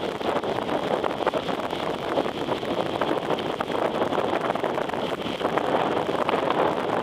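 Steady rushing of wind on the microphone mixed with the wash of sea waves, with a fine crackle running through it.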